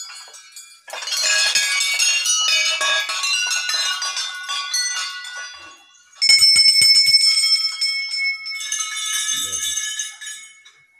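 Hanging metal temple bells being rung: many bells clanging in quick succession, then a single bell struck a few times a little after the middle and left to ring on, then another burst of clanging near the end.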